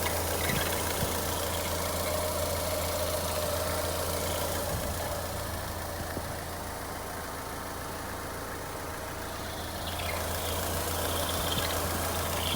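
Ford Fiesta engine running with a steady creaking whine from a failing water pump; the owner first suspected the alternator belt and the steering, and replacing the water pump cured the noise.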